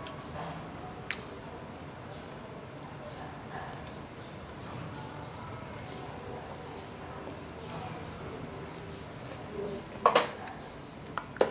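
Black chicken soup at a rolling boil in an aluminium pot on a portable gas stove: a steady bubbling hiss. A few sharp metal knocks break through, the loudest near the end.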